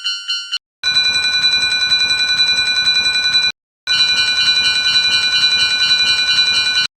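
Japanese railroad crossing warning bell ringing in a rapid, even 'kan-kan' clang. It comes in three runs that cut off abruptly, with brief silences about half a second in and about three and a half seconds in; the pitch changes from one run to the next.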